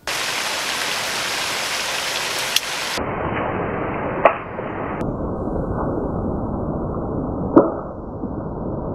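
A spinning rod (ABU Hornet Stinger Plus 664L) snapping with a sharp crack as it whips back during a cast, heard three times, the later two duller and lower. Under it runs a steady rushing noise.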